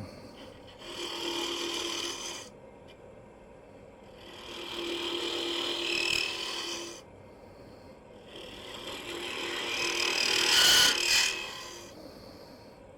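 Turning tool cutting into spinning black walnut on a wood lathe, hollowing out the inside of a box. There are three passes of cutting, each a few seconds long, with pauses between them; the last pass is the loudest.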